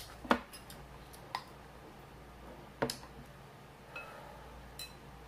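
A wooden spoon knocking and clinking against glass bowls: a few scattered sharp taps, the loudest about a third of a second in, some with a short glassy ring.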